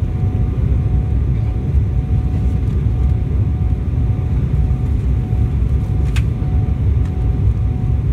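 Boeing 737 cabin noise in flight during descent: a steady low rumble of engines and airflow with a thin steady tone above it. One brief sharp click about six seconds in.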